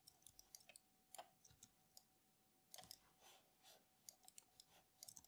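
Near silence with faint, irregular clicks of a computer mouse and keyboard.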